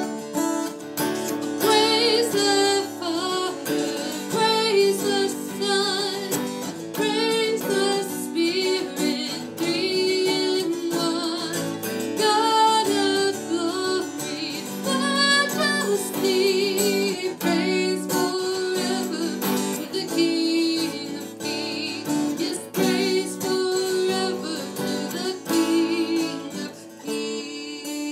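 A woman singing a worship song with vibrato, accompanying herself on a strummed acoustic guitar.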